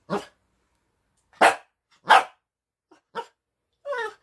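Small white puppy barking: five short barks, the two loudest about one and a half and two seconds in, the last a longer bark that wavers in pitch near the end.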